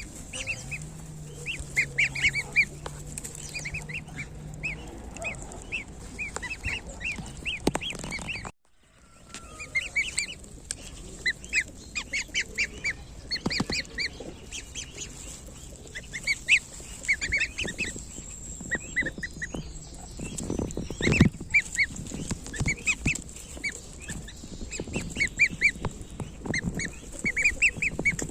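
A group of week-old goslings peeping constantly, many short high calls overlapping, with a brief break in the sound about a third of the way through.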